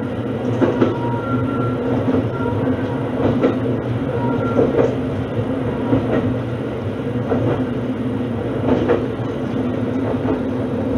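Shimabara Railway diesel railcar running along the line, heard inside the car: a steady engine drone with the wheels knocking over rail joints at irregular intervals and a few brief faint squeaks.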